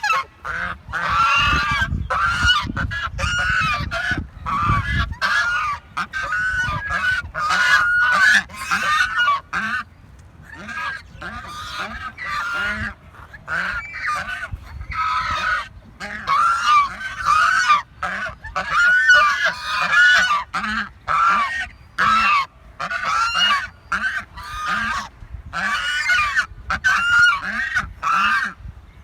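Domestic geese honking over and over in quick runs of calls separated by brief pauses. A low rumble sits under the calls for the first five seconds or so.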